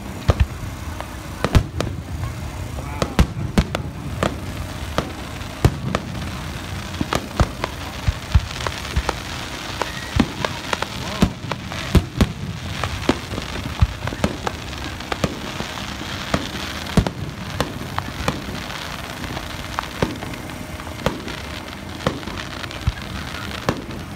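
Aerial fireworks display: shells bursting in sharp, irregular bangs, sometimes several in quick succession, over a steady background rumble and hiss.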